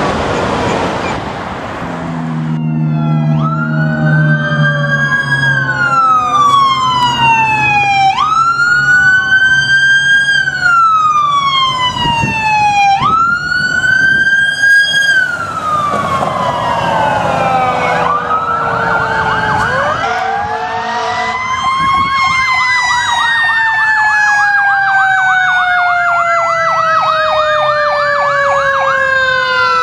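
Fire department emergency vehicles' sirens. Past a rushing noise in the first couple of seconds, a wail rises and falls every few seconds. It turns to a faster warbling yelp around the middle, and near the end a long slowly falling siren tone runs under a fast warble.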